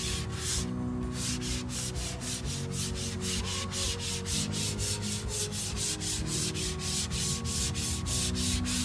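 A sanding sponge rubbed by hand over the wood of a buffet door in quick back-and-forth strokes, about four a second. This is a light scuff-sanding between coats of water-based polycrylic top coat.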